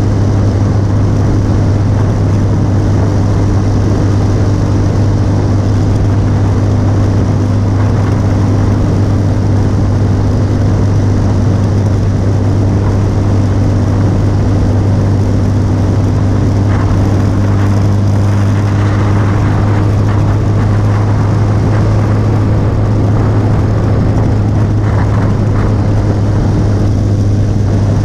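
Motorcycle engine running steadily at constant cruising speed, a continuous low drone.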